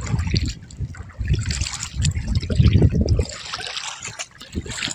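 Seawater sloshing and trickling in uneven surges.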